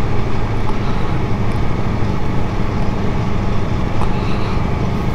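Aprilia Tuono V4 1100's V4 engine running at a steady pitch while the motorcycle is ridden, under a steady rush of wind and road noise.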